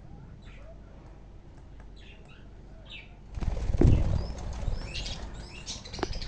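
Budgies chirping in short high notes, then about three seconds in a loud flurry of wing flapping, strongest just after it starts, with the chirping going on over it.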